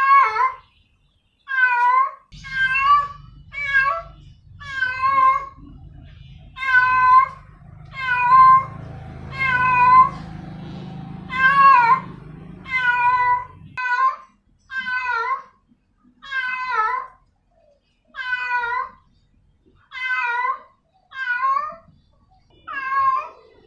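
Female cat in heat calling for a tom: a long string of loud, drawn-out meows, about one every second or so, each wavering in pitch. A low steady rumble runs underneath for roughly the first half.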